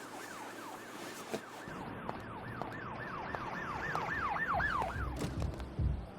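Siren-like wail effect in a sped-up dance-pop track: a falling wail repeating about three times a second and growing louder, over a low bass layer that comes in partway through.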